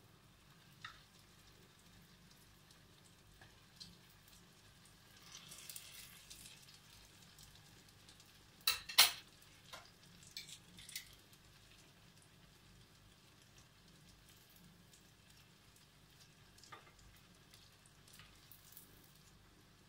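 Zalabia batter frying in shallow oil in a pan, a faint steady sizzle. Two sharp clacks about nine seconds in are the loudest sound, from the cooking utensils, with a few lighter ticks scattered through.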